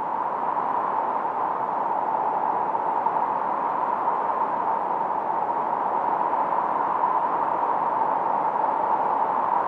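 Filtered noise from a 1972 Moog Minimoog analog synthesizer, recorded on a Studer A80 tape machine through a Roland RE-501 Chorus Echo. It is a steady, unchanging hiss, strongest in the middle of the range, with the deep lows and the highest treble cut away.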